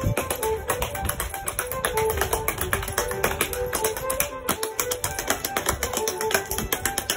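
Québécois gigue step-dancing: rapid, dense taps of metal-plated dance shoes on the floor over traditional folk music.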